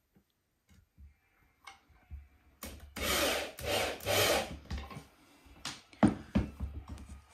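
Three short bursts of a tool biting into wood, about two seconds in all, followed a little later by a few sharp knocks on wood, the first of them the loudest.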